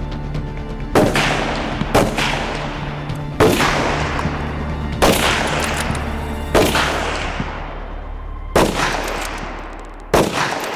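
Seven rifle shots from bolt-action precision rifles, fired one to two seconds apart at an uneven pace, each followed by a long echoing tail. A low, steady music bed runs underneath and fades out just before the last shot.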